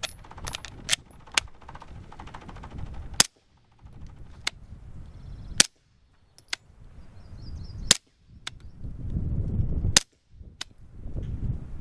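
Suppressed 9mm SAR9 SOCOM pistol with a Rugged Obsidian 9 suppressor firing 147-grain Super Vel, four shots about two and a half seconds apart with fainter clicks between them. The pistol is failing to cycle on this load.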